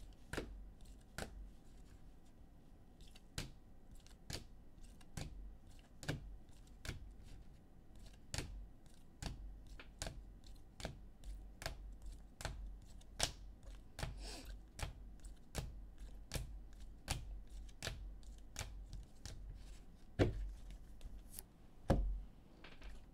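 Rigid plastic card holders clicking against one another as a stack of sports cards is flipped through one card at a time, about two clicks a second. Near the end come a couple of louder knocks.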